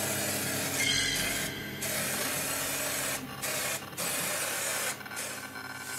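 Aerosol spray can of grey primer hissing as it is sprayed in several bursts with short pauses between them.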